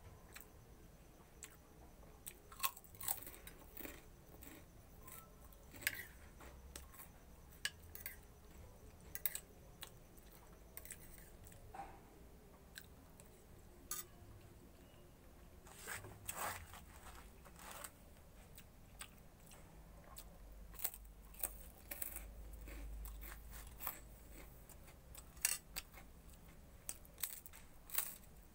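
A person biting and chewing crisp crackers with a meal, giving irregular sharp crunches every second or two.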